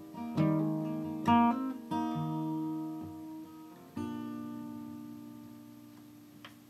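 Acoustic guitar strumming the closing chords of a song: a few strummed chords, then a final chord struck about four seconds in that rings and slowly fades out.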